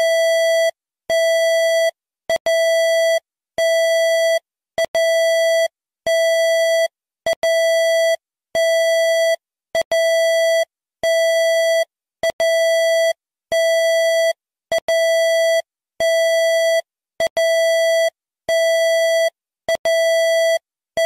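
Emergency alert system alarm tone: a harsh, buzzy beep at one steady pitch, about 0.8 s long, repeating roughly every 1.2 seconds, with short clicks in the gaps between beeps.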